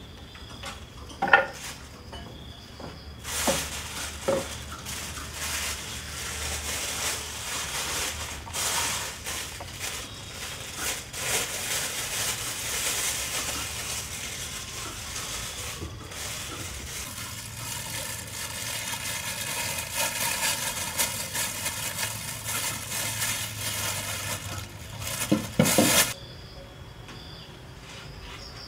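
A steady hiss with scattered clinks and knocks of pots and utensils, from kitchen cooking work. A louder clatter comes near the end, and then the hiss cuts off suddenly.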